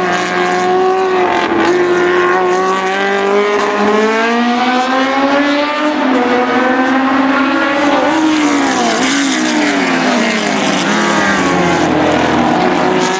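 Racing sports-prototype engines at high revs on track, their pitch climbing as a car accelerates. Later, more than one engine tone falls and crosses as the cars pass and lift off, with crackling from the exhaust as it spits flame on the overrun.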